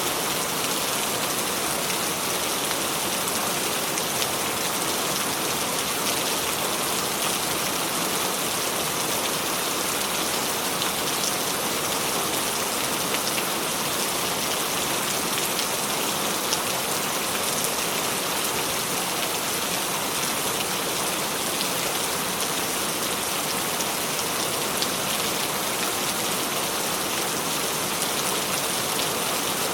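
Steady, even rain, a continuous hiss with scattered drops, no thunder.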